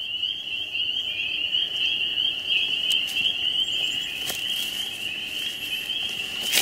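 Chorus of frogs calling, a continuous high-pitched din. A sharp click sounds about four seconds in.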